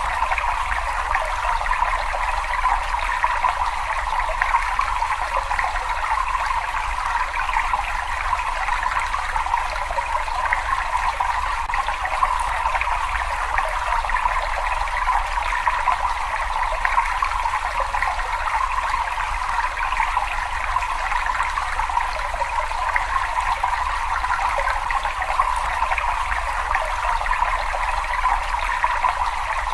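Steady, even rush of running water, a continuous flow with no separate splashes or drips, plus a faint low rumble underneath.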